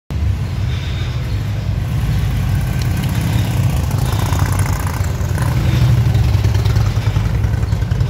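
Harley-Davidson V-twin motorcycle exhausts rumbling at low revs as bikes ride slowly past close by, growing to their loudest about six seconds in.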